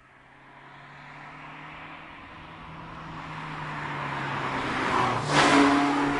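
Mazda MX-5 roadster approaching with a steady engine note that grows louder, then passing close by with a brief rush of air and tyre noise about five seconds in.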